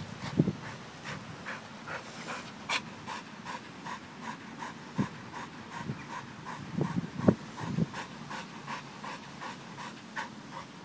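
An American Pit Bull Terrier panting hard with its tongue out, in a steady rhythm of about two to three breaths a second, hot and winded from play. A few low thumps come through at intervals.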